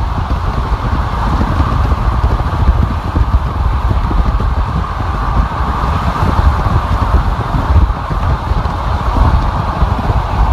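Steady road noise of a car travelling at freeway speed: a continuous low tyre rumble with rushing wind over it.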